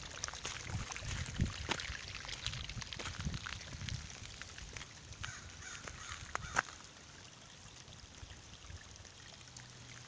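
Shallow runoff water trickling along a gravel road's edge, with scattered sharp clicks and low thumps in the first few seconds. It gets quieter from about seven seconds in.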